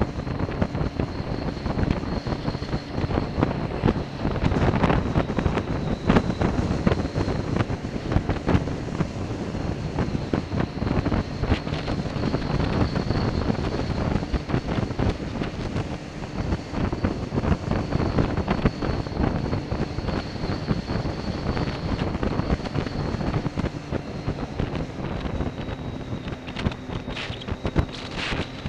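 Wind buffeting the microphone of a camera on a moving motorcycle, with the motorcycle's engine running steadily underneath.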